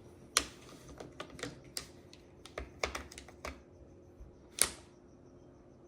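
Mahjong tiles clacking as they are picked up, set down and shuffled into a rack: irregular sharp clicks, the loudest about half a second in and again about four and a half seconds in.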